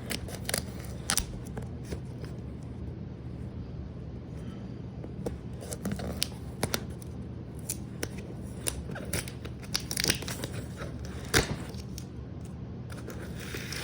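Hands picking at and tearing the wrapping of a sealed mail package, an irregular run of scratches, rips and clicks that trying to open it without scissors makes.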